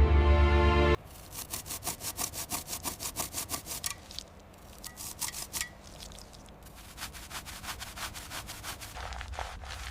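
Rapid back-and-forth rubbing strokes on a part, about six a second, as in hand scrubbing or sanding. They are quieter and less regular in the middle, then pick up again. Background music plays for the first second, then cuts off abruptly.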